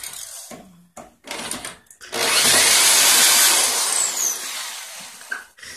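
Power drill backing screws out of a wooden bed frame: two short bursts, then a longer run whose whine falls as the drill winds down.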